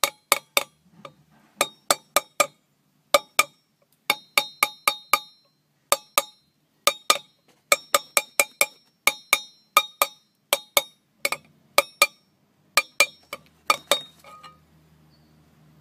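Mallet tapping a Speedi-Sleeve installer tool, driving the thin steel sleeve further onto a Ford FE crankshaft's rear seal surface. Sharp metallic taps with a short ringing, in quick groups of two to four, stopping about fourteen and a half seconds in.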